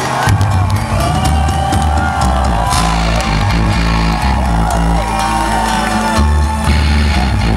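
Live industrial electronic music, played loud: a heavy, stepping synth bass line under electronic tones that glide up and down, with percussion hits.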